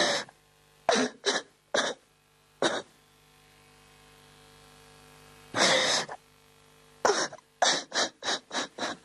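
A person coughing: a few short coughs, a longer harsher one about six seconds in, then a quick run of coughs near the end, over a faint steady hum.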